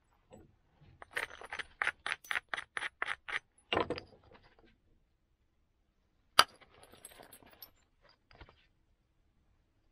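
Antler tool tapping the edge of a flint axe preform: a quick run of about a dozen light clicking taps at roughly five a second, then about halfway through a single sharp, louder strike of antler on flint, followed by a short scrape along the stone edge.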